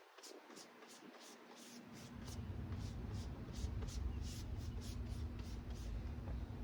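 Paintbrush swishing over a wooden table in short, even strokes, about two to three a second. About two seconds in, a low rumble and a steady low hum come in underneath.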